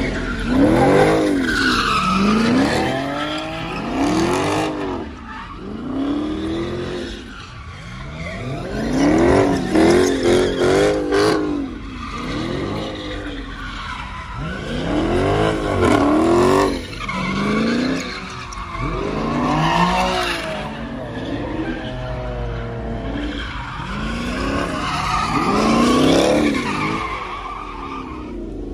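A car doing donuts on asphalt: its engine revs rise and fall over and over, every second or two, while the tyres squeal and skid.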